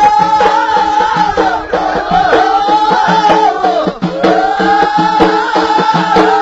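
Ahidous music: a chorus sings a long, rising-and-falling phrase that repeats about every two seconds, over a steady beat of bendir frame drums.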